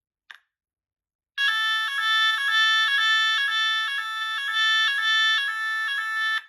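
Fulleon Symphoni voice sounder sounding the French NF S 32-001 fire evacuation tone, a loud two-pitch alternating tone repeating about twice a second, which cuts off suddenly. A faint click comes just before it.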